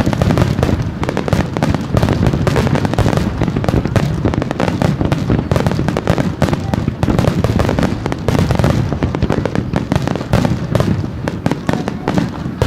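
Starmine fireworks display: shells launching and bursting in rapid, overlapping succession, a dense unbroken run of bangs and crackles.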